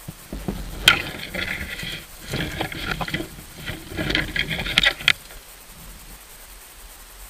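Leaves and twigs rustling and crackling against the camera as it is pushed through dense undergrowth, with sharp snaps of twigs, the loudest about a second in. The crackling stops about five seconds in.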